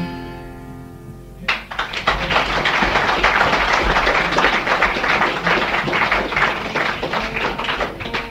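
The last acoustic guitar chord of the song rings and fades, then about a second and a half in the folk-club audience breaks into applause, a dense patter of clapping that goes on until near the end.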